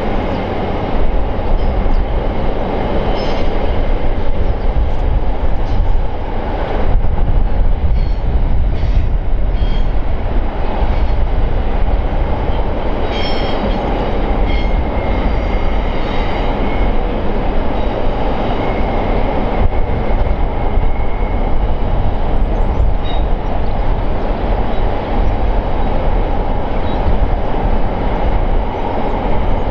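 Container wagons of a long freight train rolling across a steel rail bridge: a steady, loud rumble and clatter of wheels on the rails. A faint, high wheel squeal comes and goes in the middle.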